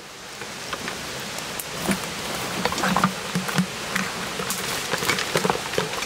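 Dry twigs, branches and leaf litter crackling and rustling under someone sliding and scrambling down a steep brushy slope: a dense run of small snaps and crunches.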